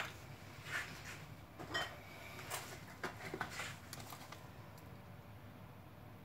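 Faint clicks and light knocks of bottles and jars being handled on a kitchen counter, a handful over the first four seconds or so, then only quiet room tone.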